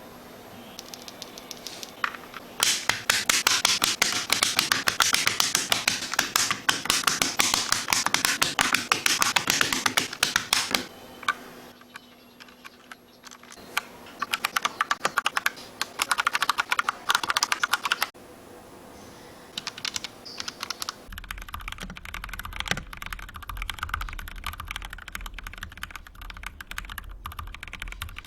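Mechanical keyboard with TTC NCR V2 switches being typed on quickly in bursts of rapid key clicks, with short pauses between them. In the last third the clicks are softer, over a low hum.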